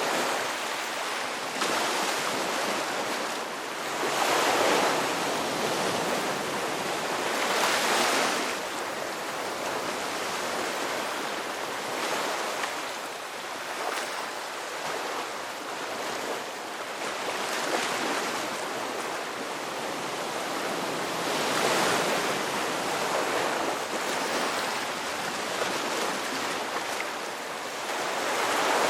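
Sea waves breaking and washing on a shore: a continuous rush of surf that swells louder every several seconds as individual waves come in, most strongly about four to five seconds in, around eight seconds, around twenty-two seconds and near the end.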